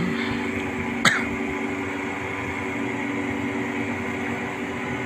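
Mobile crane's diesel engine running steadily with an even hum, with one short sharp click about a second in.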